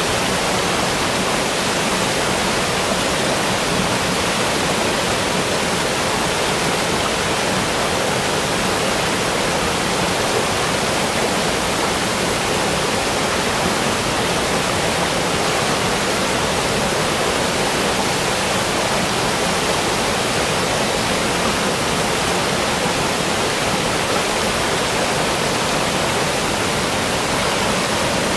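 Steady, even rushing of water, unbroken throughout.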